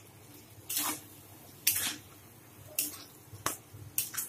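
Spatula stirring and scraping thick, wet masala paste in a kadai as it is fried down (kosha). There are about six short, wet strokes, roughly one a second and closer together near the end.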